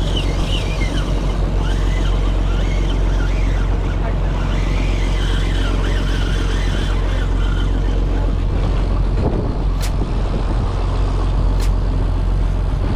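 A boat's motor runs steadily under way, a heavy low rumble mixed with wind buffeting the microphone and water rushing past the hull.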